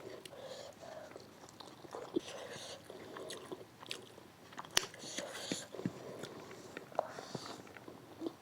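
A person chewing a mouthful of chicken biryani close to the microphone: soft wet chewing with scattered sharp clicks, one stronger click a little past the middle.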